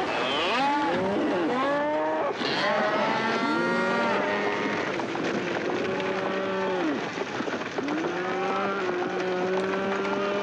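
A herd of stampeding cattle bawling and mooing over one another in many overlapping long calls, over a steady clatter of trampling hooves.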